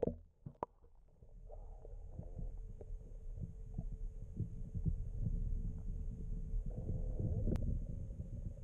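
Underwater sound picked up by a camera plunged into a lake: a brief splash right at the start as it goes under, then a muffled low rumble with irregular soft knocks and a faint steady hum as a hand moves a bass in the water.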